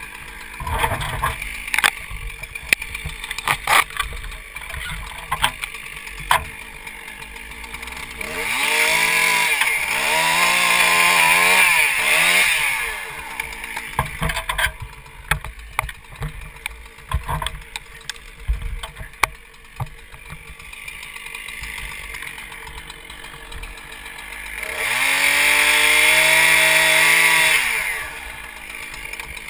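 Chainsaw engine revved up to full throttle twice, each time for about four seconds before dropping back. Between the revs it runs low, with scattered knocks and clicks.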